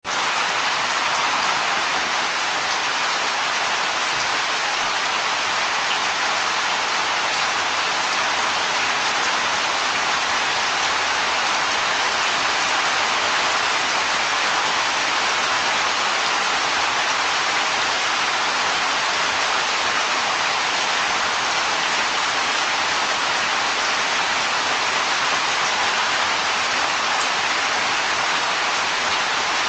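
Heavy rain falling steadily, an even hiss with no let-up, picked up by a Ring security camera's microphone.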